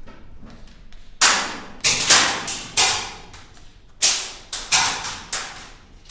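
Airsoft gun firing about eight sharp single shots at an uneven pace, in two quick groups with a pause between them.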